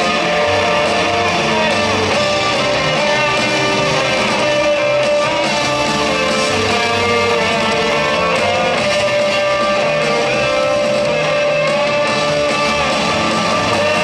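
Rock band playing live in an arena: electric guitars strummed over bass and drums, with long held notes over a steady beat.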